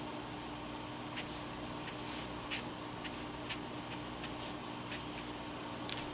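Brush-tip marker stroking on paper in a scatter of faint short scratches, over a steady low hum.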